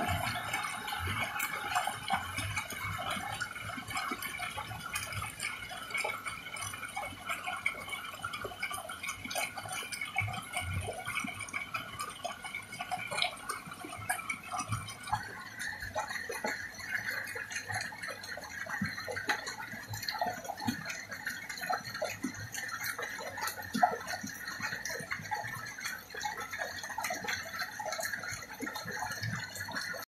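Shallow water in a flooded field splashing and dripping: a dense run of small clicks and splashes over a steady outdoor hiss, with one sharper click late on.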